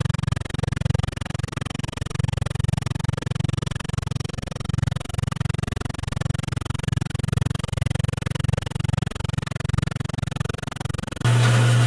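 A low, uneven pulsing rumble. Near the end a shop machine's electric motor switches on abruptly with a loud, steady hum.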